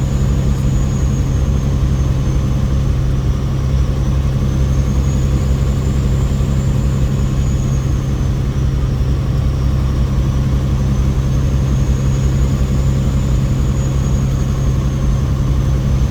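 Semi truck's diesel engine running with a steady low drone. A faint high whine slowly rises and falls in pitch over it.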